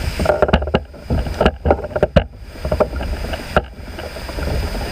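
Irregular knocks and clatter on a kayak, about ten sharp hits in the first three and a half seconds, some in quick pairs, over a steady low rumble.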